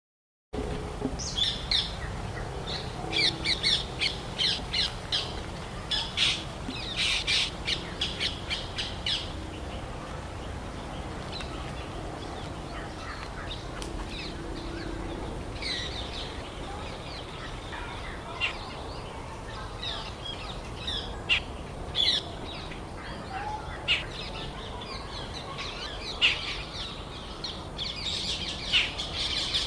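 Wild birds calling and chirping: a busy burst of quick high calls over the first several seconds, then scattered single calls, with the calls thickening again near the end. A steady low background noise runs beneath them.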